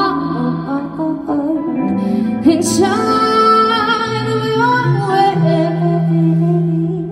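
Live band music: a woman singing lead into a microphone, backed by electric bass and electric guitar.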